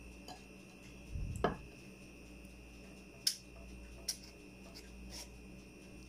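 A plastic measuring cup tapping and scraping against paper cupcake liners in a metal muffin tin as batter is scooped in: a few scattered light clicks and knocks, the loudest with a soft thump about a second and a half in, over a faint steady high hum.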